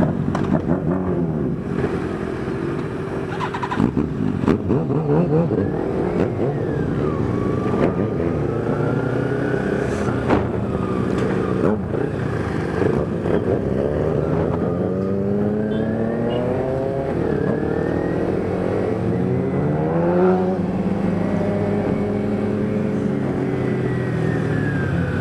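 Motorcycle engines running on a group ride, heard through a microphone inside the rider's helmet, the pitch climbing and dropping several times as the bikes accelerate and shift gears.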